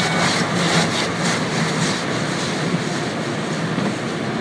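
Automatic car wash spraying water over a van's windshield, heard from inside the vehicle: a steady rush of water on the glass and body, pulsing quickly, about three or four times a second, for the first second and a half.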